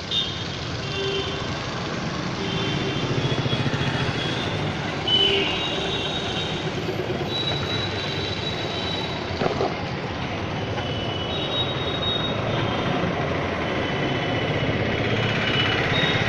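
Steady background road traffic noise from passing vehicles, with short high-pitched tones recurring throughout and a sharp knock about halfway through.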